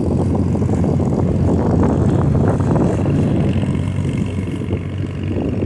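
A fallen pine tree being dragged along a road by a running vehicle: a steady engine drone under the crackle and scrape of branches and needles across the ground, loudest around the middle.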